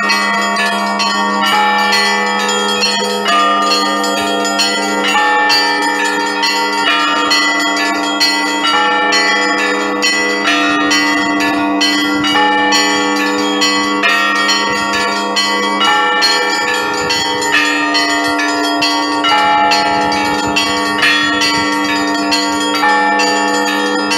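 Russian Orthodox church bells rung by hand from a belfry: quick, repeated strikes on the smaller bells over the ringing of larger, lower bells, blending into a continuous peal.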